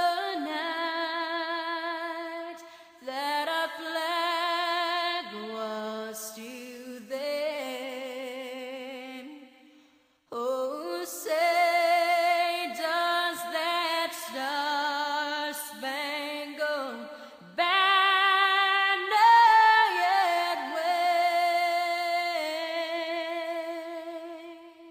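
Background music: an unaccompanied high voice, female-sounding, singing slow, long-held notes with vibrato and no words. The phrases break off briefly about ten seconds in.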